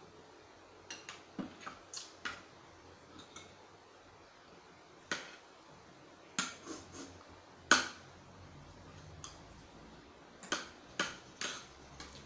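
Metal fork and spoon clinking and scraping against a plate as food is worked and scooped up: a string of irregular sharp clinks, the loudest about eight seconds in.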